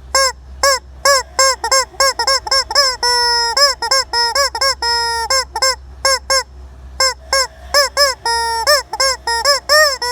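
A chicken cackling: a rapid series of short, loud calls, some drawn out longer, with a pause of about a second near the middle before the calling picks up again.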